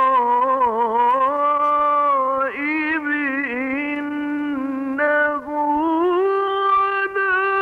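Male Quran reciter chanting in the melodic mujawwad style, holding long ornamented notes on drawn-out vowels; the pitch steps up about six seconds in.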